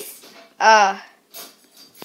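A woman's voice saying one short word about half a second in, followed by a few faint soft noises.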